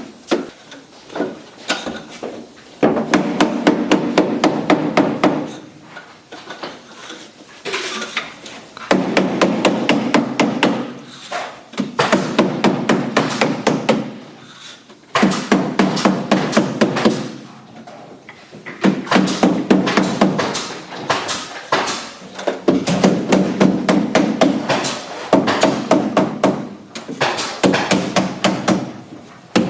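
Hammer blows knocking a thin facing board down onto a countertop, in quick runs of several strikes a second broken by short pauses. The tapping presses the board onto its contact-cement coat so it bonds tightly.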